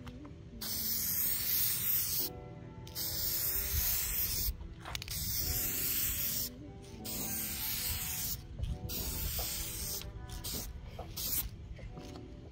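Headlight-restoration clear coat being sprayed onto a sanded headlight lens in even strokes: a series of spray hisses, each a second or two long, with short breaks between. The later passes are shorter and fainter.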